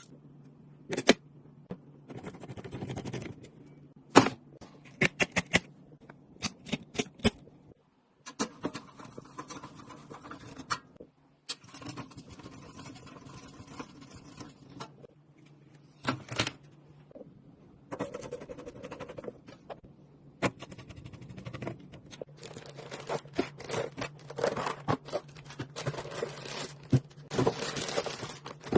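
Computer hardware being handled during assembly: a run of sharp clicks and knocks with stretches of scraping and rubbing, over a faint steady low hum.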